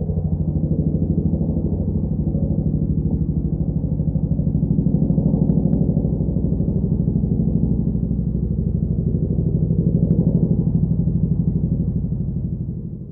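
Chinook tandem-rotor helicopter: the two rotors' blades beating in a fast, even rhythm over a deep engine drone, fading out near the end.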